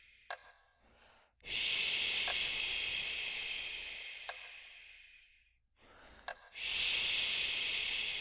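A long, drawn-out whispered 'shhh', given twice, each starting sharply and fading away over about four seconds. A faint soft tick comes about every two seconds underneath.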